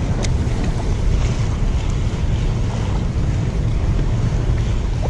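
Wind buffeting the microphone, with choppy water lapping at a seawall underneath; one short click near the start.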